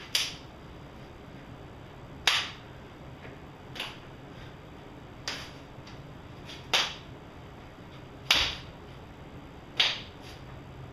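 Sharp slaps of hands and forearms meeting as a strike-and-parry drill is worked at speed: seven slaps, about one every second and a half, some louder than others.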